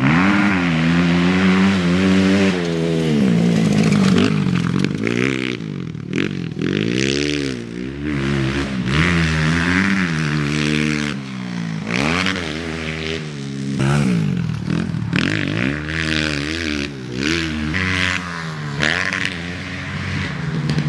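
Pit bike engine revving hard and letting off again and again as it is ridden around a motocross track, its pitch climbing and dropping every second or two.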